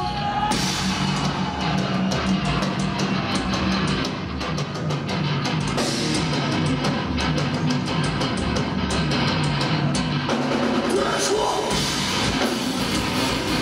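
Heavy metal band playing live through a club PA: distorted electric guitars and bass on a repeating low riff over a busy drum kit with dense cymbal hits. An instrumental stretch with no singing.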